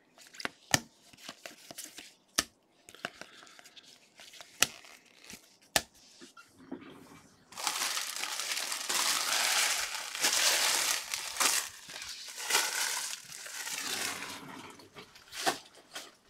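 Baseball cards handled in gloved hands, giving a run of sharp clicks and snaps, then about seven seconds of loud crinkling and tearing of card packaging being opened, with a few more clicks near the end.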